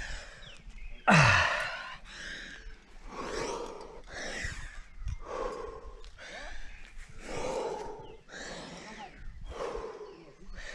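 A climber breathing hard from the effort of climbing, with forceful breaths about one a second and a loud grunting exhale about a second in.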